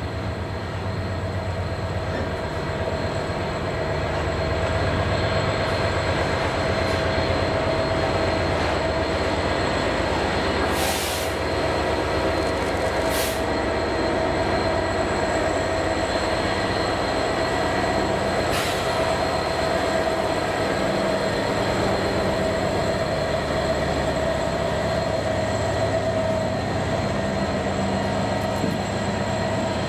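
Class 66 diesel locomotive running light past at slow speed, its EMD two-stroke V12 engine running steadily and growing louder over the first few seconds. Three short high hisses come around the middle.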